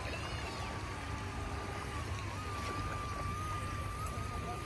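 DEERC Z62 toy RC amphibious plane's twin electric motors and propellers whining steadily while it taxis across choppy water, the pitch wavering a little, over a low rumble.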